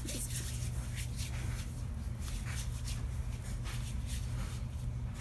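Hands rubbing together to work in body cream: a soft, repeated swishing of skin on skin over a steady low hum.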